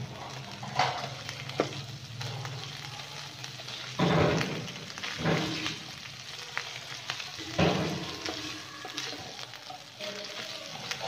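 Garlic paste sizzling in hot oil in a frying pan, stirred with a slotted spatula that scrapes across the pan several times. The loudest scrapes come about four and seven and a half seconds in.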